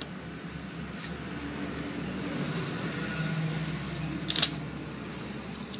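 Motorcycle gearbox shafts and gears being set into the aluminium crankcase half: metal clinking on metal. There is a light click about a second in and a short, sharp clatter a little past halfway, the loudest sound here, as the gear cluster drops into place.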